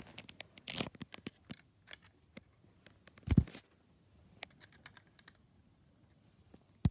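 Hard plastic Gravitrax marble-run pieces clicking and knocking together as a drop wheel is fitted onto a launch starter: a run of light clicks, a heavier knock about three seconds in, and a sharp click near the end.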